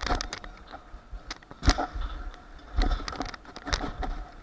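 Small hard wheels rolling on concrete, with several sharp clacks and knocks about a second apart.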